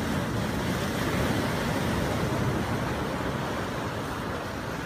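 Ocean surf breaking against the rocks and washing up the sand, a steady rush of water noise.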